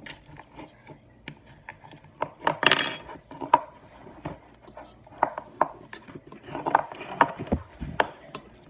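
A utensil clicking and scraping against a bowl as sticky slime with foam beads is stirred, with a longer scrape about three seconds in.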